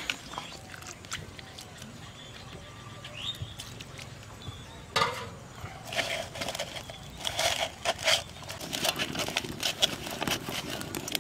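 Hands mixing sliced bitter gourd with gram flour and cornflour in a steel bowl: irregular clicks and taps of fingers against the metal, more frequent in the second half.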